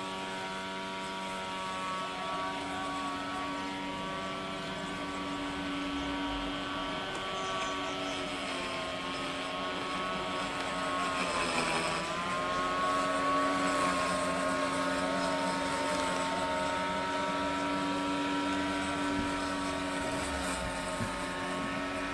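An engine droning steadily with several steady tones, its pitch dipping briefly about halfway through and then settling again as it grows a little louder.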